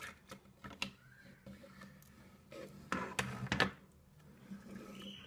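Scattered clicks, knocks and scrapes of toys being handled and moved, with a louder rustling scrape about three seconds in.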